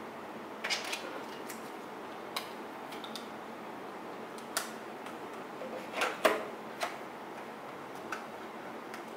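Scattered sharp plastic clicks and taps from a handheld restaurant pager being handled and its buttons pressed, with a cluster of louder clicks about six seconds in.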